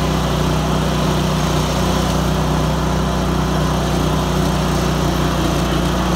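John Deere riding lawn tractor's engine running at a steady speed while the tractor drives along.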